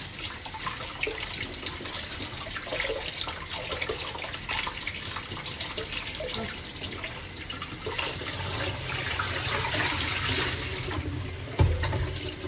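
Kitchen tap running into a stainless steel sink while raw chicken pieces are rinsed by hand under it, with small splashes and clicks of handling. A single knock near the end.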